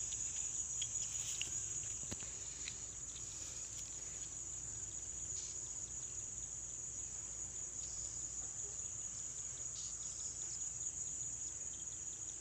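Insects trilling in a steady, continuous high-pitched drone. A few faint light clicks come in the first few seconds.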